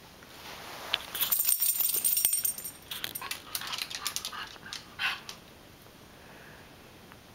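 A miniature schnauzer on the move: collar tags jingle and rustle for about two seconds starting a second in, then a run of light clicks follows as its claws tap across a hardwood floor.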